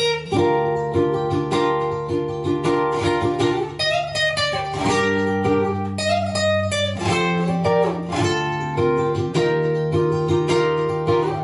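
Background music on plucked strings, steady notes picked in an even rhythm, with a few notes that glide up and down.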